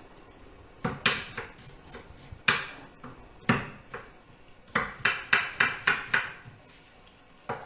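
Knife chopping shallot on a wooden cutting board: a few separate knocks, then a quick run of about six chops in just over a second near the middle, and one last knock near the end.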